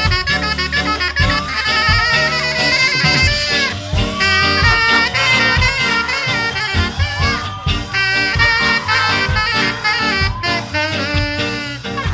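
Ska band playing live, with saxophone and brass carrying the melody over a steady bass-and-drum beat.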